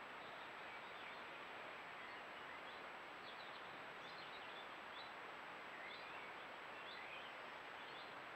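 Steady hiss of a trail camera's microphone with a constant thin high tone, and faint, scattered chirps of songbirds in the background.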